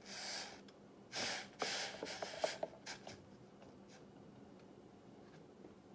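Short scrapes and a few light clinks of things being handled and set down in the first three seconds, then quiet.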